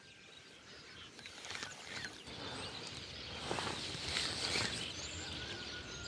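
Faint outdoor ambience of light rain and wind: a soft, steady hiss that grows a little louder over the seconds.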